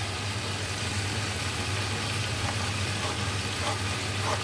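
Sausages frying in a pan, a steady sizzle over a low steady hum, with a few light knife taps on a plastic cutting board in the second half.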